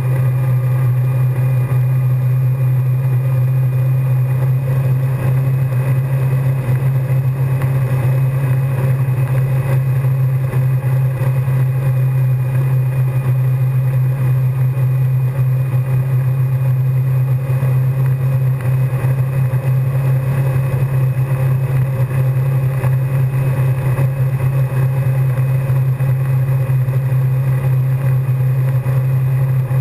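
Towboat engine running at a steady speed, a constant low drone that does not change, with the wash of the wake under it.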